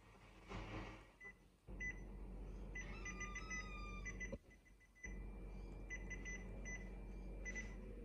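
Kyocera 4002i copier's control panel beeping in short repeated tones as its keys are pressed, over the low hum of the copier's machinery, which starts about two seconds in, stops briefly about halfway, then runs on.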